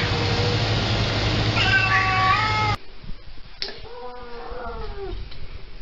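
Two cats meowing. First a short meow about two seconds in. Then, after a cut, a tabby cat held for a claw trim gives a longer, drawn-out complaining meow that rises and falls in pitch.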